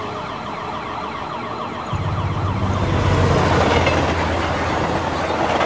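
A train-like rumble with a rapid, repeating falling whine over it. A deep hum joins about two seconds in and it grows louder.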